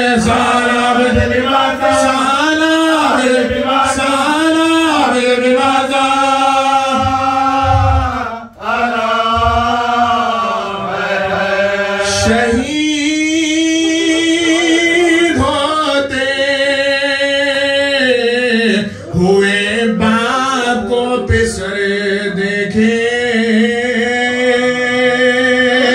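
A man chanting a mourning elegy into a microphone: long held notes with wavering pitch, with a brief pause for breath about eight and a half seconds in.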